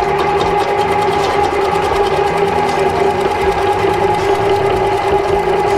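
DQ180 electric vegetable cutter running with a steady motor hum while its 1.5 mm slicing disc cuts a cucumber fed down the tube, with a fine fast ticking over the hum.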